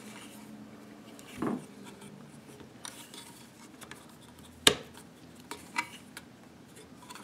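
Metal parts of a Type 81 rifle's trigger group being worked by hand: a soft scrape, then light ticks, then one sharp metallic click about two-thirds of the way through as the locking plate is pushed down over the trigger pin and snaps into place, followed by a couple of smaller clicks.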